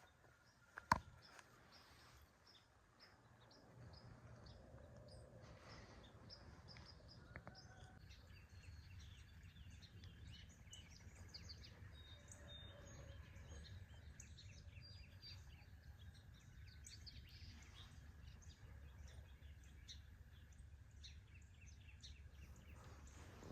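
Faint chirping of small birds, many short high chirps, over a low steady rumble. A single sharp click about a second in is the loudest sound.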